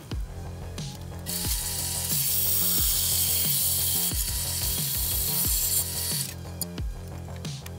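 Bandsaw blade cutting through a cast iron cooking plate: a loud, high hiss that starts about a second in and stops about six seconds in. Background music with a steady beat plays under it.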